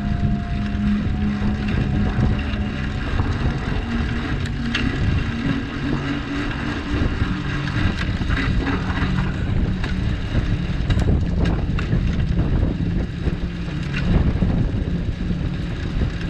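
Wind buffeting the microphone and road rumble from a long john cargo bike riding along a city street, with a low steady hum underneath and a few sharp clicks.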